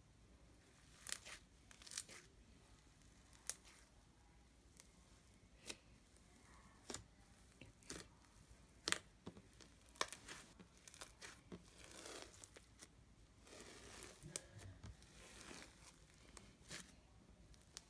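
Floam slime being squeezed and pulled, giving irregular sharp pops and clicks with short stretches of crackling.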